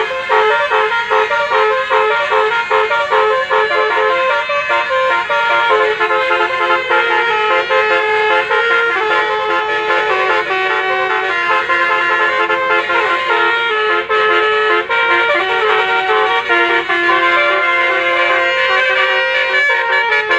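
Bus telolet horns, multi-tone musical air horns, sounding without a break and stepping through melody-like runs of notes.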